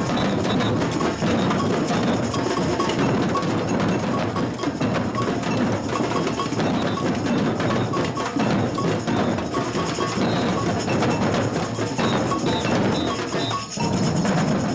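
Batucada percussion ensemble playing: massed drums with repeated bell strikes ringing over them.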